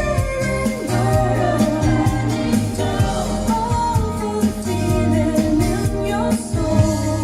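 A song with a singing voice over instruments and a steady bass, played back through a pair of JBL LX70 three-way tower loudspeakers.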